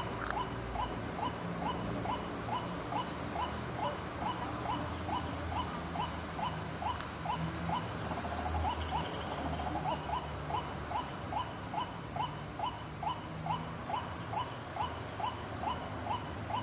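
White-breasted waterhen calling: a long, even series of short notes, about three a second, with a low hum underneath.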